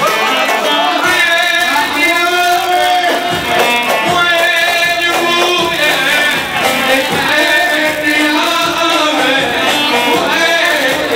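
Live Iraqi band music: a loud, ornamented melodic line with a wavering pitch runs throughout.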